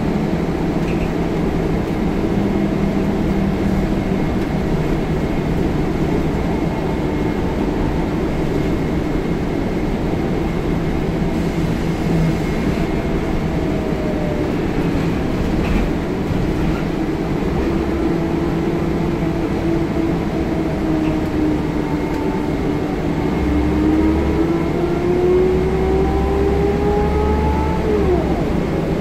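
Scania L94UB single-deck bus heard from inside the saloon: the diesel engine and road noise run steadily. Over the last several seconds a whine rises in pitch and the low rumble grows louder as the bus picks up speed.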